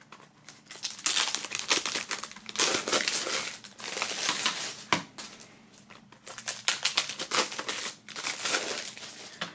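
Clear plastic shrink-wrap film crinkling as it is peeled off a CD jewel case, in uneven rustling spells, with a single sharp click about halfway through.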